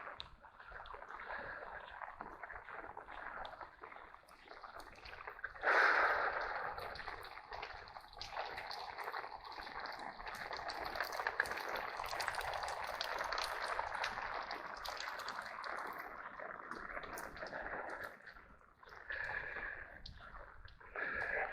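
Rain-wet water sounds: dripping and splashing water with many small drop clicks. It gets suddenly louder about six seconds in, then eases toward the end.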